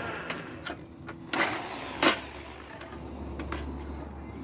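Knocks and clatter of a freshly drilled metal number plate and tools being handled on a workbench: a few light clicks, a short scrape, then one sharp knock about two seconds in.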